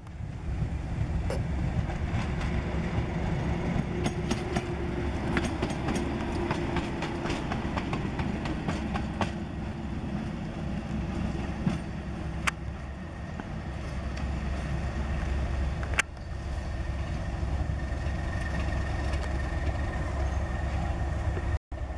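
Class 37 diesel locomotive's English Electric V12 engine running as the locomotive moves along the line, a steady low rumble with a held tone that changes pitch. Occasional sharp clicks and knocks sound over it, and the sound drops out for a moment near the end.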